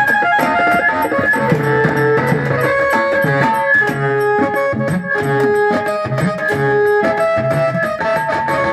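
Live Marathi jagran folk-band music: an electronic keyboard playing a twangy, plucked-sounding melody over a steady rhythm from a dholki barrel drum and a metal-shelled drum beaten with sticks.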